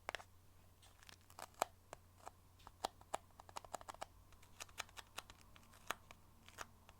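Fingernails tapping on a box: sharp, irregular clicks, often in quick clusters of two or three.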